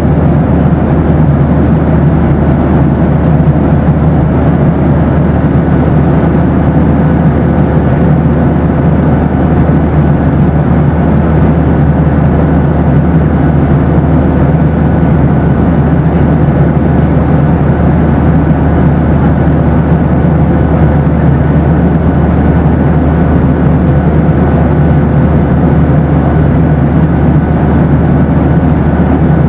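Steady cabin noise of a Boeing 737 airliner: a constant low rumble with faint steady tones above it, unchanging throughout.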